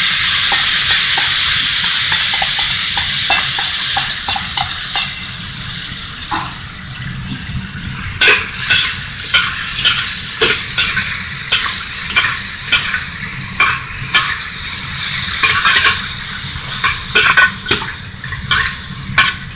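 Sauce sizzling loudly as it hits a wok of fried chicken wings on high heat, easing after a few seconds. From about eight seconds in, a metal spatula scrapes and clacks against the wok as the wings are stir-fried in the sauce.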